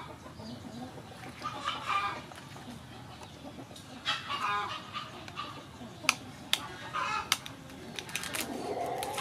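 Chickens clucking in short repeated calls, with a longer, lower call near the end. A few sharp clicks sound about six to seven seconds in.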